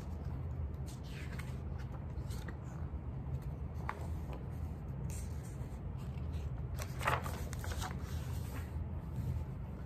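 Pages of a hardcover picture book being turned and handled: a few soft paper rustles, the clearest about seven seconds in, over a steady low room hum.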